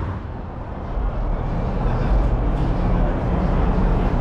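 Car engine running, a steady low sound with a faint hum that comes in about a second and a half in.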